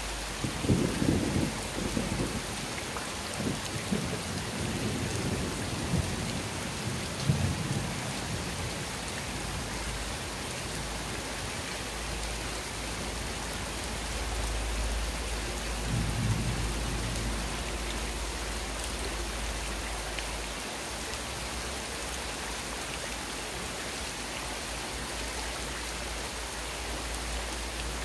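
Steady rain falling on a wet concrete courtyard, a continuous even hiss. Low rumbles of thunder swell through the first several seconds and once more about halfway through.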